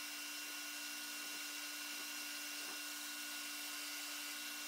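Benchtop belt sander running with a steady, faint hum while a poplar wood blank is sanded on its 4 by 36 inch belt, with a few faint scuffs of the wood against the belt.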